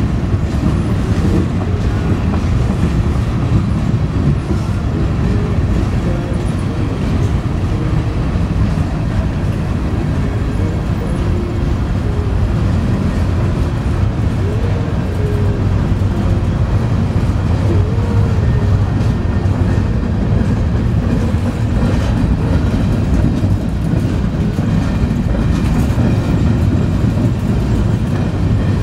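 Kansas City Southern freight train's boxcars and covered hopper cars rolling past close by: a steady, loud rumble of steel wheels on rail. A few faint wavering wheel squeals come through about halfway through.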